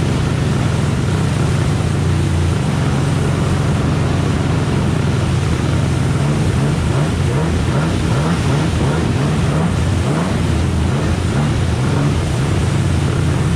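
Stand-up jet ski engine running hard at speed, with water spray and wind rushing over it. The engine note is steady at first, then wavers rapidly from about halfway through as the hull skips over rough rapids water.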